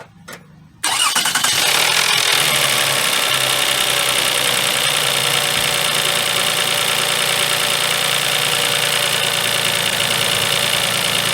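2004 Toyota Sienna's 3.3-litre V6 engine starting about a second in, after a short click, then idling steadily. It runs smoothly with no misfire shake now that the broken ignition coil connector has been replaced.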